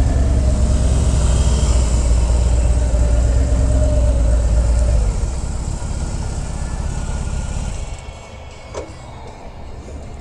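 Harley-Davidson V-twin touring motorcycle engine running at low speed in a deep, steady rumble. It eases off about halfway through, then cuts out about two seconds before the end, leaving a single faint click.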